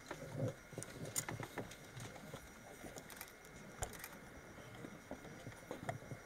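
Quiet ambience of a small standing crowd: scattered light clicks, taps and rustles, with a faint low murmur about half a second in.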